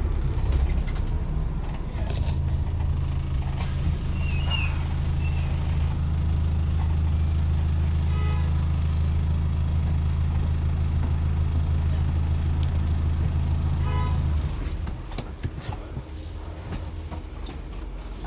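Diesel engine of an Enviro400H MMC hybrid double-decker bus heard from inside the saloon: a steady low drone that swells about two seconds in, holds one pitch, then cuts out about fourteen seconds in, leaving a quieter road and cabin rumble.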